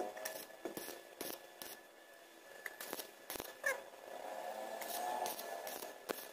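Stick welding with a 2.0 mm E6013 electrode at 90 amps in short stitches: irregular sharp crackles and clicks as the arc is struck and broken, with pauses between. A separate wavering whine comes and goes in the background after about four seconds.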